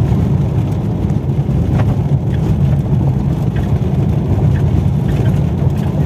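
Car driving on a gravel road, heard from inside the cabin: a steady low rumble of engine and tyres on gravel, with a few faint ticks.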